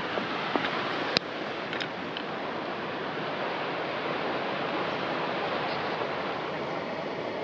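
Steady rush of a shallow river flowing over stones, with one sharp click about a second in.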